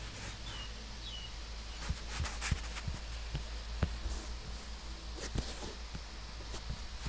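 Light taps and knocks of fingers handling and drawing on a tablet touchscreen, scattered irregularly over a steady low hum, with two short high chirps in the first second and a half.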